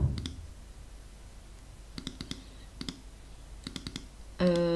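Quiet computer mouse clicks, mostly in twos and threes about a second apart, picking items from an editing program's right-click menu, after a soft low thump at the very start. Near the end a person's voice hums one steady note.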